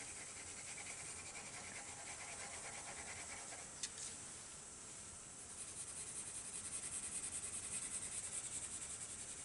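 Pencil shading on drawing paper: faint scratchy strokes of graphite rubbing back and forth, turning into a quick steady rhythm of several strokes a second in the second half, with a single tick about four seconds in.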